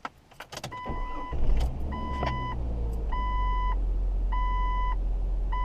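A few clicks, then the 1999 Jeep Cherokee's engine cranks, catches about a second in and settles into a steady idle. Over it, a dashboard warning chime repeats about every second and a bit.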